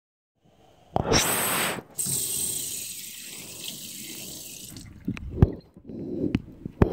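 Bathroom sink tap running into the basin, with hands washing under the stream. The water comes on loudly about a second in and stops just before five seconds in. After it come a few sharp knocks.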